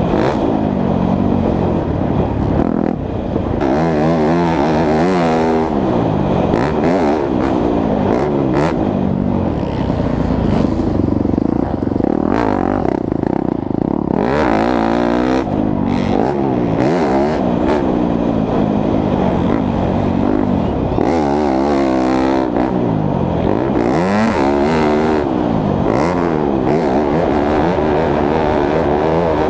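2017 Yamaha YZ250F's single-cylinder four-stroke engine being ridden hard, its pitch rising and falling over and over with throttle and gear changes, holding steadier for a few seconds near the middle.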